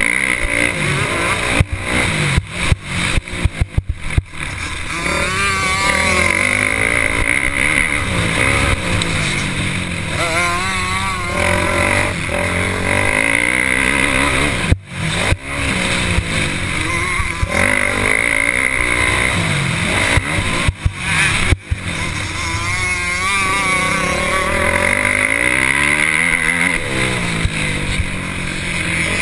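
Motocross bike engine heard from a camera mounted on the bike, revving up and down over and over as the rider works the throttle and gears round the track. The sound drops off sharply for an instant a few times.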